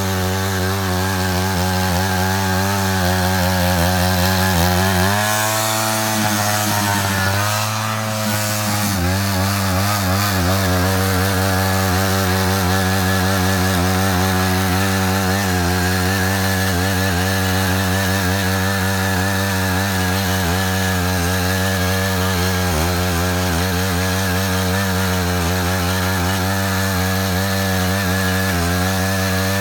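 Matsuda power tiller's engine running steadily under load while cutting a trench. Its note shifts briefly between about five and nine seconds in, then settles back.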